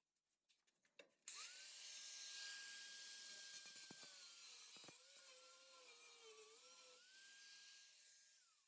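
A small high-speed power tool starts up with a whine and hiss about a second in. Its pitch sags and wavers as it works under load on the Bronco's sheet metal, then it spins free again and winds down near the end.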